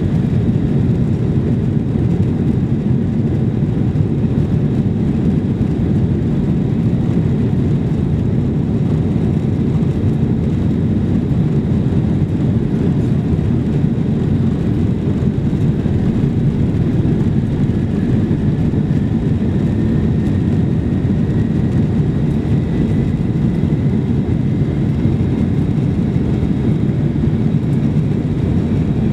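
Cabin noise aboard a Boeing 747-400 taxiing onto the runway: a steady low rumble of the jet engines and the rolling airframe. A faint whine rises slowly in pitch over the second half.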